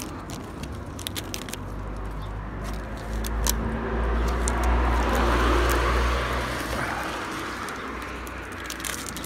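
A car passing along the road, its engine and tyre noise swelling to a peak about halfway through and then fading away.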